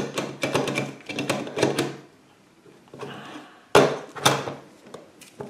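Hard plastic pieces of a Play-Doh Cranky the Octopus playset clicking and knocking together as they are handled and fitted: a quick run of clicks, a short pause, then two louder knocks about four seconds in.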